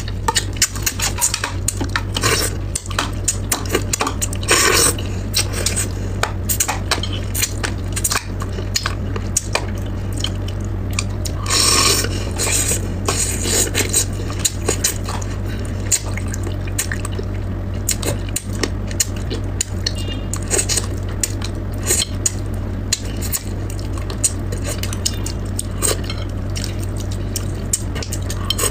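Close-miked eating: chopsticks clicking and scraping against a plate while braised crucian carp is picked apart, with mouth sounds of eating and spitting out fish bones. A steady low hum runs underneath.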